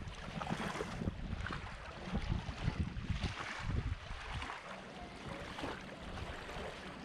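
Gusts of strong wind buffeting the microphone, over the steady wash of shallow water on the beach.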